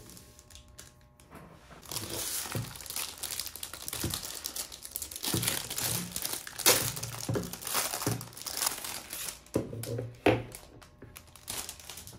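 Clear plastic wrap crinkling and tearing as it is pulled off a new watercolor palette, starting about two seconds in, with a couple of sharp clicks from the palette being handled.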